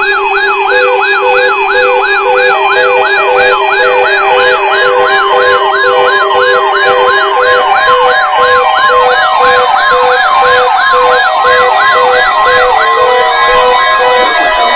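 Electronic siren yelping, its pitch sweeping up and down about twice a second, stopping about 13 seconds in. A steady low tone runs under it for the first half, with pulsed beeping tones throughout.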